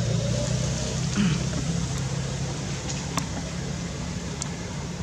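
Low steady hum of an engine running, with two faint clicks in the second half.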